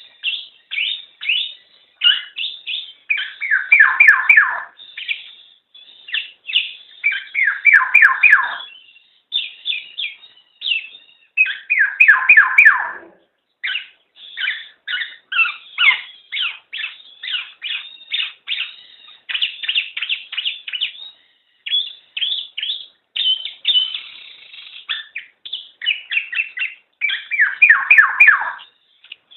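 Black-naped oriole (kepodang) calling: a continual string of short downward-sliding notes, broken by several louder runs of quick falling notes.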